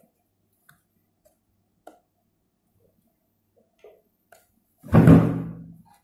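Faint clicks and taps from handling a clear plastic project box and its wiring. About five seconds in there is one louder, low handling noise that lasts about a second.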